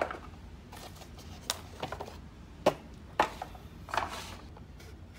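Handling noise: scattered light clicks and knocks of small hard objects, the two sharpest a little under three seconds in and about half a second apart, with soft rustles between.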